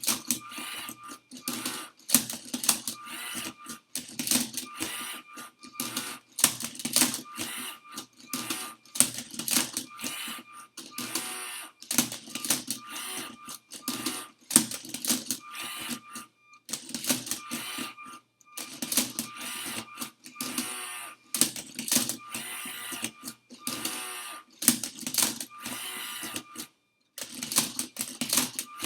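LEGO Spike Prime MindCuber robot solving a Rubik's cube: its motors run in quick bursts of plastic clicking and clacking as it turns and flips the cube, with a faint steady whine during the moves and brief pauses between some of them.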